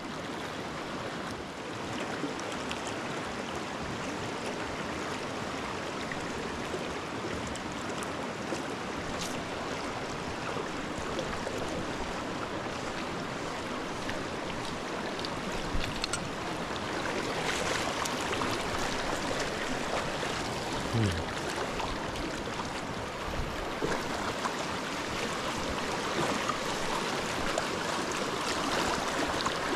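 A small rocky creek rushing over stones in a shallow riffle, a steady wash of water, growing a little louder from about halfway through.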